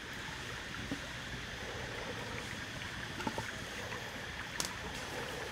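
A thin stream of liquid trickling into a clay pot over a steady low outdoor hiss, with a few faint light clicks.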